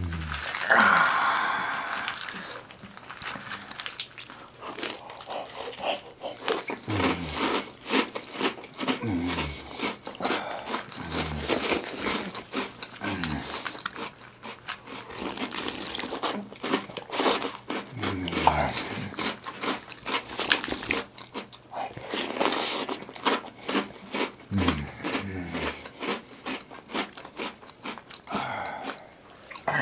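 Close-miked eating of cereal in milk: wet chewing, crunching and squelching, with gloved fingers stirring and scooping in plastic bowls. A steady run of small wet clicks is broken now and then by a low falling gulp, about eight times.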